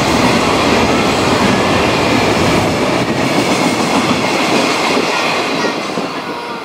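Freight train of container wagons passing on the next track: a dense, steady rail noise that fades in the last second or so as the last wagons go by.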